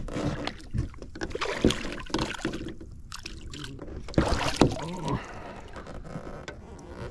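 A hooked crappie splashing at the surface and water sloshing as it is grabbed by hand beside the boat and lifted out, with a few sharp knocks among the splashes. The loudest bursts come at the start and again about four seconds in.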